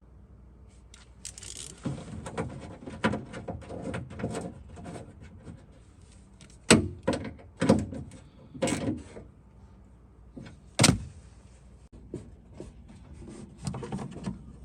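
A hand tool clicking and rattling against metal inside a Fiat 500 door as the handle's 10mm retaining nut is tightened. Four louder knocks come about seven, eight, nine and eleven seconds in.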